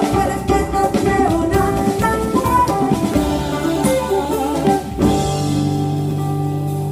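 Live jazz group playing, with drum kit, guitar, double bass and piano; drums drive the first few seconds, then about five seconds in the band settles onto a long held chord.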